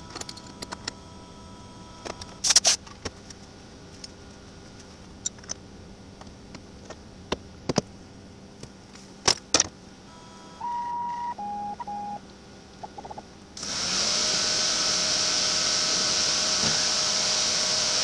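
A vertical milling machine is stopped while the tube in its vise is moved, giving scattered clicks and knocks of metal being handled. A few short beeps sound about eleven seconds in. Then the mill starts up again about two-thirds of the way through and runs steadily with a held hum.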